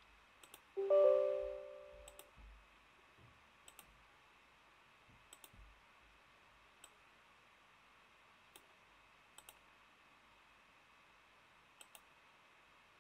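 Faint computer mouse clicks, single and in quick pairs, scattered throughout. About a second in, a short computer alert chime of a few held notes sounds and fades out over about a second; it is the loudest sound.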